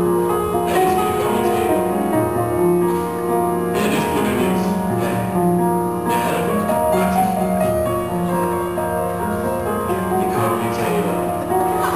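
Music led by sustained keyboard notes, a slow melody whose notes change about every second over a steady lower part.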